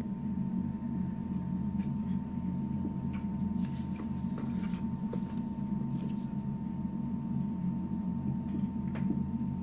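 Steady low room hum with a thin steady tone above it, and a few faint scratches and taps of a dry-erase marker writing on a whiteboard.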